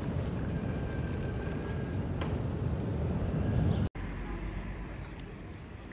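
Wind rumbling on the microphone while cycling along a paved street. It cuts off suddenly about four seconds in, and quieter outdoor ambience follows.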